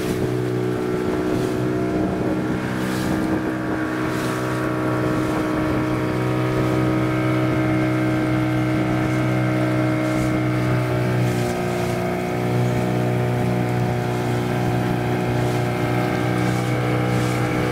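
Small motorboat's engine running steadily, heard from aboard, over water and wind noise. Its note dips briefly about two-thirds of the way through, then carries on.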